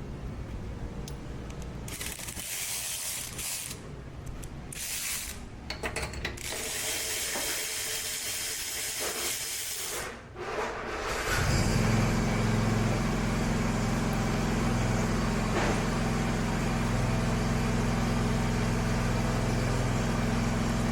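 A socket ratchet clicking and short bursts of hiss as the push mower's spark plug is taken out for checking. About eleven seconds in, a machine starts and runs with a loud, steady hum.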